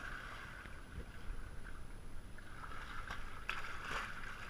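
Water splashing in a swimming pool as a monofin mermaid tail kicks at the surface, with a few sharper splashes about three and four seconds in.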